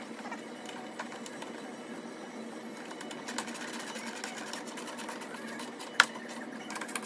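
Ratchet wrench clicking in quick runs as the small bolts holding the air intake duct to the radiator support are tightened, with one sharp click about six seconds in, over a steady background hiss.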